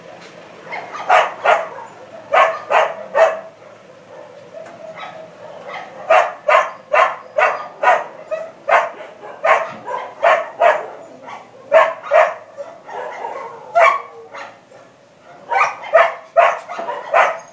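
Dogs barking repeatedly in irregular runs of short, sharp barks, with brief pauses between runs.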